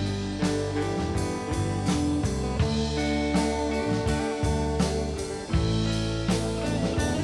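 Live rock band playing a steady instrumental groove: electric guitars, electric bass and a drum kit keeping a regular beat, with no singing.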